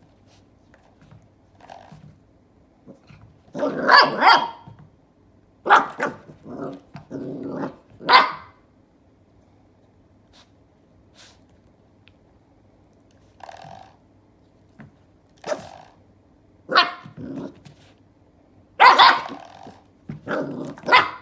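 Chocolate Labrador puppy play-barking and growling at a spring door stop, in short bursts. The loudest come about four seconds in and again near the end.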